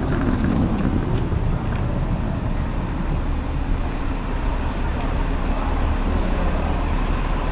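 City street traffic: a steady low rumble of passing cars and buses on a busy avenue, a little heavier in the first second.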